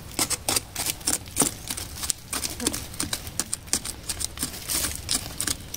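Small red-handled pruning shears snipping twigs and leaves off a bonsai shrub: an irregular run of quick, sharp clicks and snips, mixed with leaves rustling under the hand.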